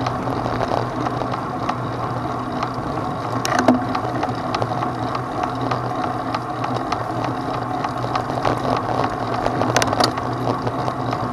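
A vehicle travelling over a rough mountain dirt track: a steady drone with scattered rattles and knocks, the sharpest about three and a half seconds in and again near ten seconds.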